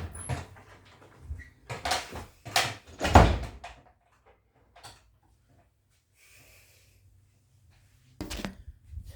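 A person coughing hard from inhaled smoke: a run of rough coughs close together, the loudest about three seconds in, then another cough near the end.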